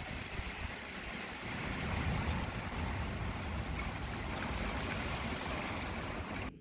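Strong storm wind blowing hard in a steady rush, swelling a little about two seconds in, then cutting off suddenly near the end.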